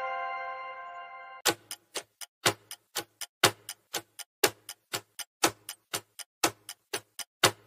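A chime of several bell-like tones rings out and fades. About a second and a half in, a clock-style countdown ticking sound effect starts: about four ticks a second, the strongest once a second, timing the answer to a quiz question.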